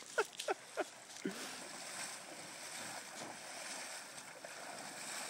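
Water sloshing and splashing around the legs of a person wading knee-deep through a shallow stream in a survival suit, a steady rush of splashing from about a second and a half in.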